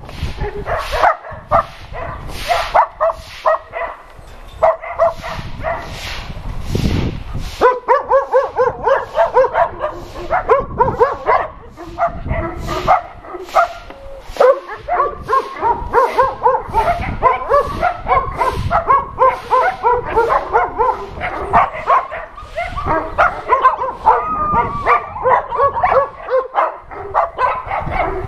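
A crowd of dogs barking together: separate barks at first, then from about eight seconds in a dense chorus of overlapping barks.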